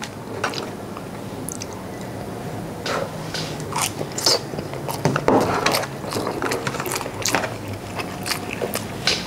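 Close, wet chewing and mouth sounds of a man eating sushi, picked up by a clip-on microphone on his shirt, with irregular light clicks and scrapes of chopsticks on the plastic tray.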